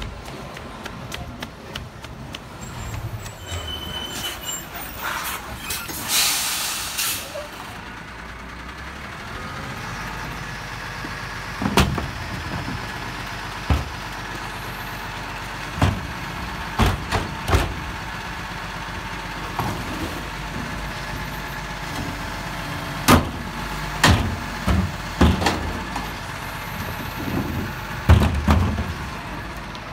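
Rubbish truck's diesel engine running steadily, with a loud hiss of air about six seconds in. After that come repeated clanks and bangs as wheelie bins are handled and tipped by the truck's rear bin lifter.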